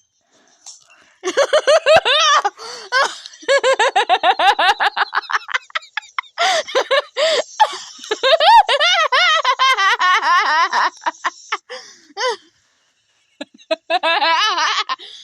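A person laughing hard in long runs of quick, high-pitched bursts, with short breaks between them.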